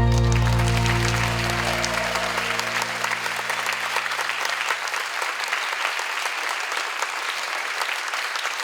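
Congregation applauding while the last held chord of the worship song fades out over the first few seconds.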